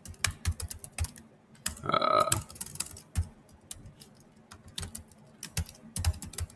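Typing on a computer keyboard: irregular key clicks as a terminal command is entered, with a short pitched sound about two seconds in that is louder than the keys.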